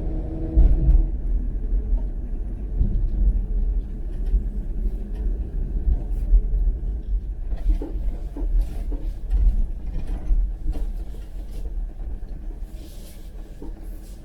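Low, steady vehicle rumble, with an engine tone that fades out in the first second and scattered light clicks and knocks in the second half.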